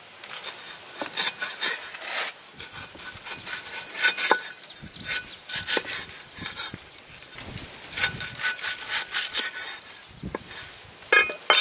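Heavy cleaver slicing through a lemongrass stalk on a wooden chopping block: rapid, uneven strokes, each a crisp cut and a knock on the wood.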